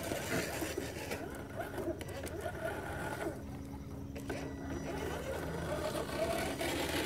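Small electric motors and gear drives of 1/10-scale RC crawler trucks whining steadily as the trucks crawl along a leaf-covered trail.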